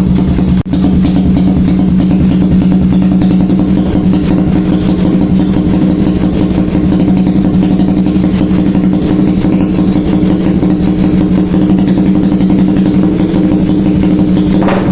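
Suzuki Raider R150 Fi's single-cylinder engine idling steadily through a newly fitted KOU GP Warrior aftermarket exhaust during a sound check of the pipe.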